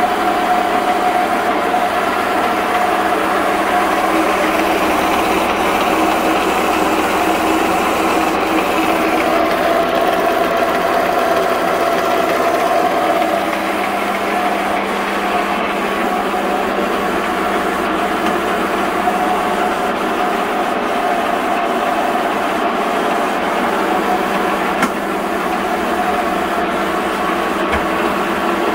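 Dean Smith & Grace 13 x 30 lathe running with its spindle under power: a steady mechanical whine from the headstock gearing and motor, with several held tones. It eases slightly about halfway through, and there is a single click near the end.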